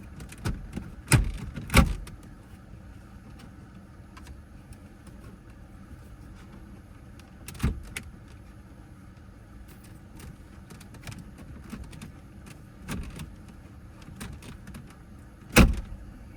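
Scattered knocks and clicks of car interior trim panels and tools being handled and fitted back into place, with two sharp knocks about a second in, another near eight seconds, and the loudest one near the end.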